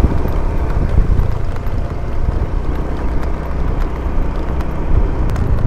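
A motor vehicle running along a road, its steady engine and road noise mixed with wind rushing on the microphone.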